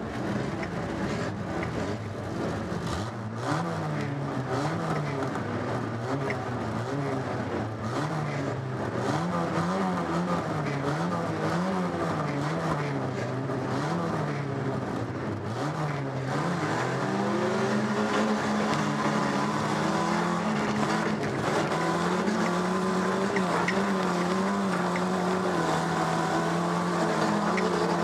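Stock car engine heard from inside the cabin, revving up and down repeatedly about once a second. About halfway through it settles into a steadier, higher-revving run that dips only slightly now and then.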